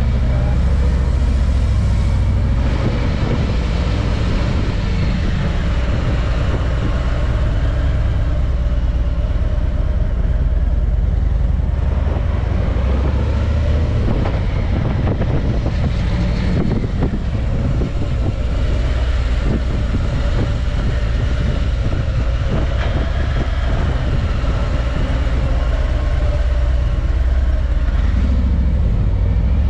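Car being driven at low speed, a steady low rumble of engine and road noise.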